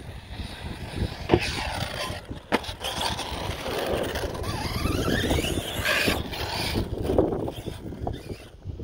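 Electric RC basher with a Surpass Hobby 4076 2000 Kv brushless motor running on grass and dirt, its motor and gearing whining and gliding up and down in pitch with the throttle. Two sharp knocks, about a second and a half in and again a second later, over a steady low wind rumble on the microphone.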